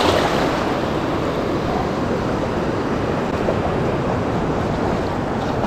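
Shallow surf breaking and washing through foamy water close around the wading angler, a steady rushing noise.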